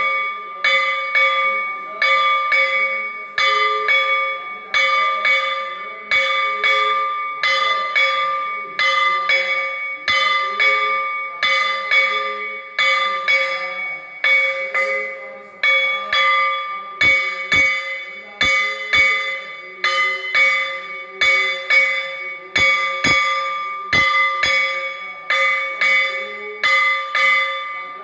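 Temple bell struck over and over, about twice a second, in the steady rhythm of an aarti, each stroke's ringing running into the next.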